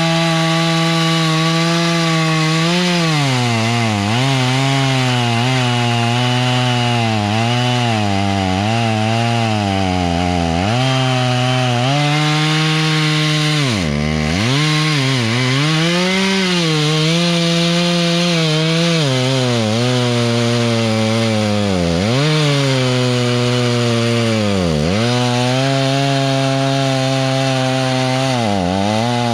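Tractor diesel engine driving a PTO stump grinder, the cutter wheel chewing into wood. The engine note sags and recovers again and again as the wheel bites into the stump under load, with a few deeper drops.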